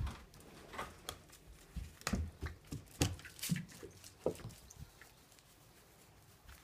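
Irregular patter of footsteps, scrambling paws and knocks as a Dalmatian, unsteady after a seizure, hurries outside with a person following. The clatter thins out after about four and a half seconds.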